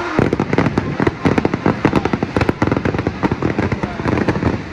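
Aerial fireworks going off in rapid succession: a dense run of sharp bangs and crackles, many every second.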